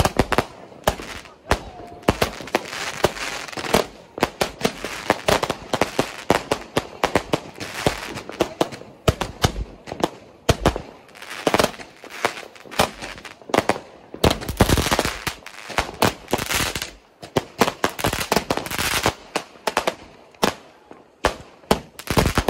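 Fireworks going off in rapid, irregular succession: sharp bangs and crackles several times a second from a firework cake lit on the ground firing shots into the air.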